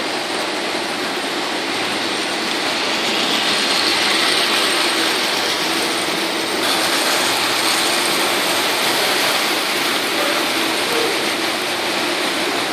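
Model trains running on metal track: a steady mechanical whirring and clatter from the motors and wheels.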